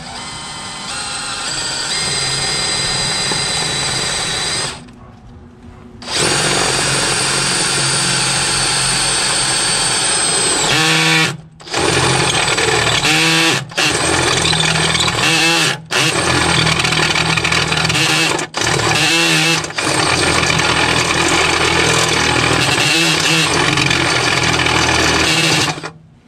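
Cordless drill running as the bit bores engine mount holes through the metal engine mounting plate. The drill stops for about a second some five seconds in, then runs on with several brief stops in its second half, spinning back up each time.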